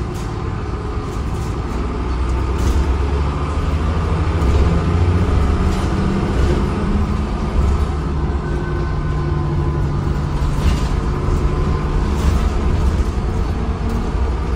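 Lower deck of a Transbus Trident ALX400 double-decker bus under way: the diesel engine and driveline give a steady low drone with a hum whose pitch shifts a few times, and the interior panels and fittings rattle every second or two.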